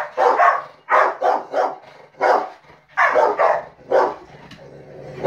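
Rottweilers barking in rapid bursts at a fly swatter being waved at them, falling quiet for the last second.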